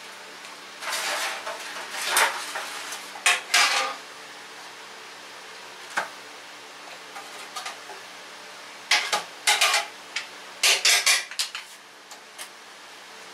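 Metal tongs clanking and scraping against a large stainless steel stockpot as simmered meat is lifted out. There are two bouts of clatter, one starting about a second in and a second around nine seconds in, with a single knock between them.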